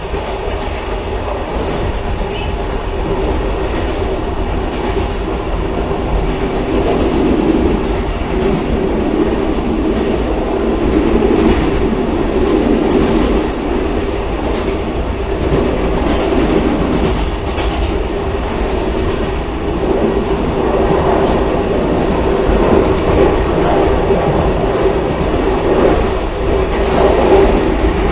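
Railcar running along the track: a continuous rumble with a steady droning tone, growing a little louder partway through.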